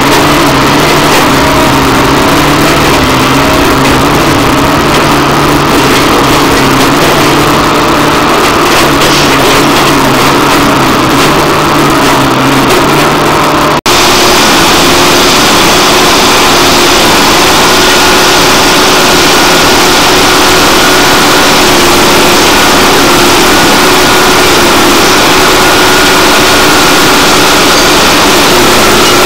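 Heavy railway track-maintenance machinery running loudly and steadily, engine and hydraulics, as it works the ballast around the ties. About fourteen seconds in the sound drops out for an instant and comes back with a different steady pitch.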